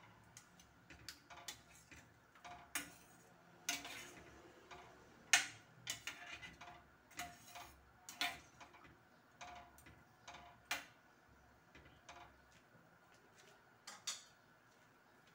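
Metal spoon clinking and scraping against a stainless steel frying pan while stirring coconut milk: a run of irregular taps, each with a short metallic ring, the loudest about five seconds in.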